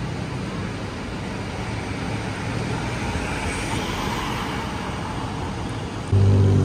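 City street traffic: a steady wash of road noise from passing cars. A louder low droning hum comes in near the end.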